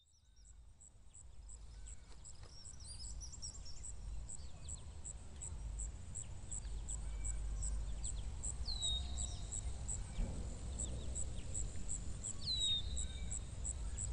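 Nature ambience fading in from silence: birds chirping, with two clear falling whistles in the second half. Behind them runs a steady high insect chirp repeating a few times a second, over a low rumble.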